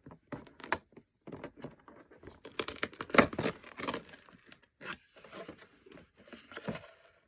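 Packaging being torn open and crinkled by hand: a few short rustles and clicks, then a longer tearing and crinkling stretch about halfway through, with a few more rustles near the end.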